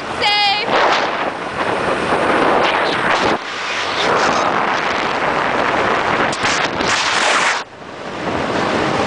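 Wind rushing and buffeting against the microphone of a camera carried on a moving scooter, loud and rough, easing off briefly twice before building back up.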